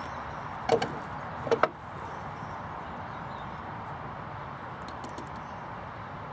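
Two short knocks of timber on wood about a second apart, as a pine batten is handled on a bench of planks, over a steady outdoor background noise.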